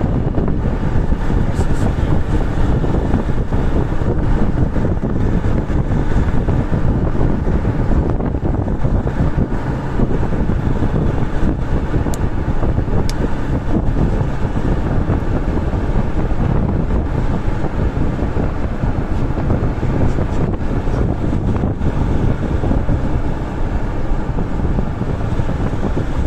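Steady road and wind noise from a moving vehicle, heard from inside it, with most of the sound low down and no change in level.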